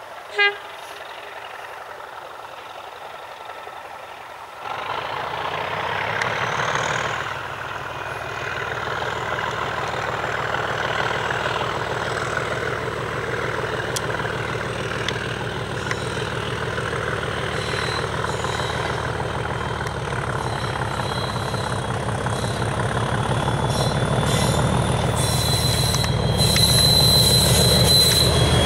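Diesel locomotive hauling a train toward the listener. About half a second in there is one brief sharp sound. About five seconds in the engine opens up with a rising whistle, then settles into a steady heavy throb that grows louder as the locomotive approaches.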